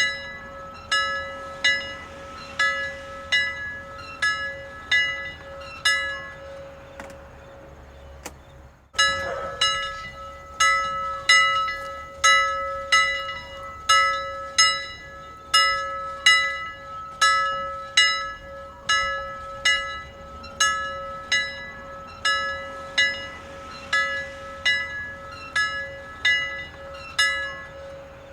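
A single bell struck over and over at an even pace, just under two strikes a second, each strike ringing over a steady lingering hum. The strikes fade for a couple of seconds after about six seconds in, then start again suddenly and loudly about nine seconds in.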